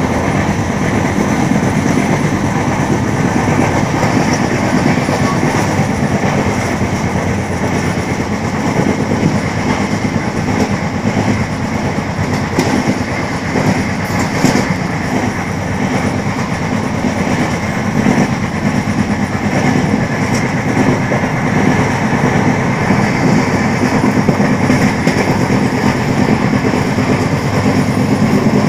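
Running noise of an LHB passenger coach at speed, heard from its window: a steady rumble of wheels on rail with a clickety-clack.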